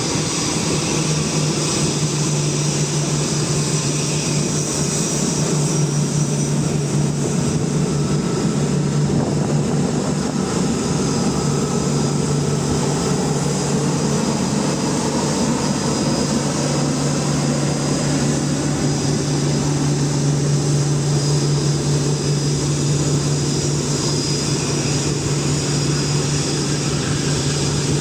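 Boeing 787 airliner's jet engines running steadily: an even rushing noise over a constant low hum.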